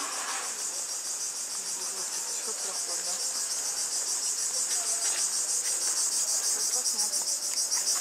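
Cicadas chirring in a continuous high, finely pulsing chorus that slowly grows a little louder.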